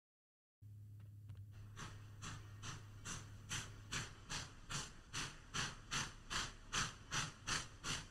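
Steam locomotive exhaust chuffing, about two and a half beats a second, starting about half a second in and growing steadily louder as it approaches, over a steady low hum.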